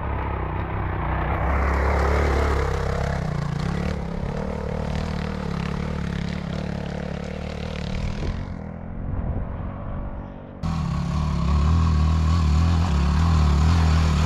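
Dirt bike engine revving and labouring as a rider climbs a steep, rutted clay track. About ten and a half seconds in the sound jumps abruptly and the engine note comes in louder and steadier.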